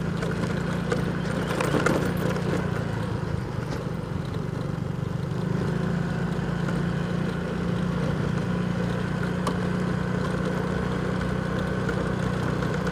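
Small motorcycle engine running steadily at low speed while ridden along a rough unpaved road, with a constant rush of road noise over its hum.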